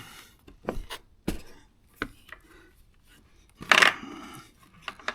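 A series of sharp clicks and knocks, then a louder rustling scrape nearly four seconds in: hands handling hoses and plastic parts in a car's engine bay.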